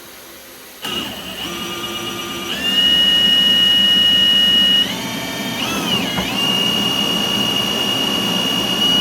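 Milwaukee M18 Fuel cordless hammer drill spinning a flexshaft drain-cleaning cable in a sewer line: the motor starts about a second in with a high whine, steps up in speed, drops and wavers briefly as the cable loads up midway, then runs steadily and cuts off at the end.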